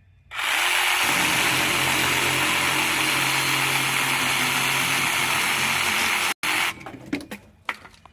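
Electric power tool running steadily as it cuts through a palm tree branch. Its motor starts just after the beginning, cuts off suddenly about six seconds in, and a few knocks and a clatter follow.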